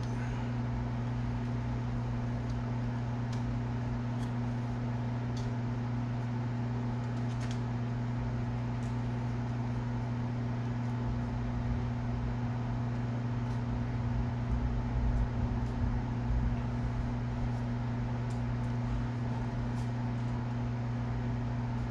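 Steady electric motor hum, unchanging, with faint clicks and rubbing from small rod parts being handled, a little louder about fifteen seconds in.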